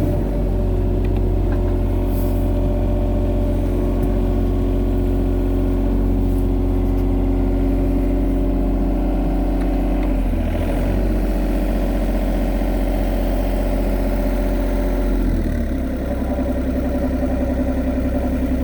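Excavator diesel engine running steadily, its note shifting about ten seconds in and again near fifteen seconds.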